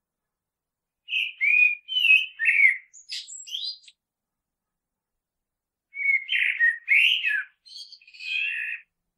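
Common (Eurasian) blackbird singing: two warbled song phrases of about three seconds each, a couple of seconds apart, each ending in higher, thinner notes.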